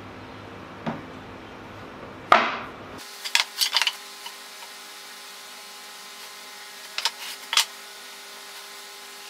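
Pine boards being laid out and shifted on a workbench: a loud knock about two seconds in, then bursts of short wooden clacks and knocks as the boards are pushed together, over a faint steady hum.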